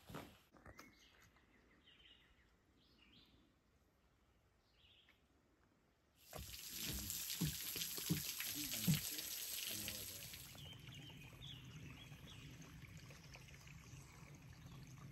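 Water trickling and spattering off a rock overhang into a pool, a steady hiss that starts about six seconds in with a few low thumps under it and softens about two-thirds of the way through. Before it, faint bird chirps.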